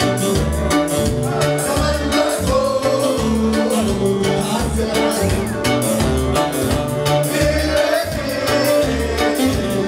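A song with singing over a steady bass beat.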